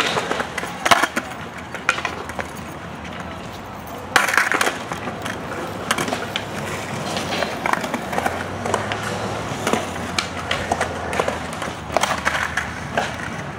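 Skateboards rolling on concrete with the clack and knock of boards and wheels hitting the ground, several sharp impacts scattered through. The loudest comes just after 4 s, as a board is kicked up off the ground.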